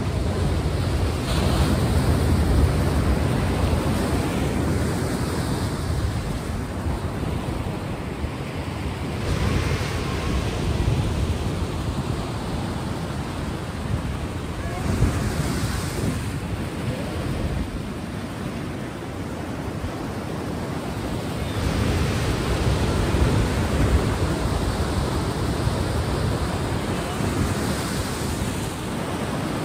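Sea surf: waves washing in and drawing back, a steady rush of noise that swells every few seconds.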